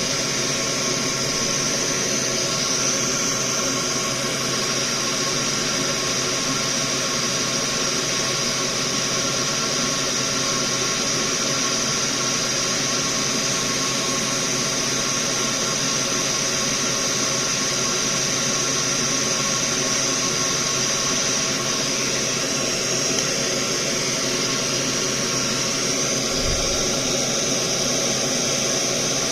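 Small electric fan running steadily: an even whirring hiss with a strong high band and a constant hum of several fixed tones.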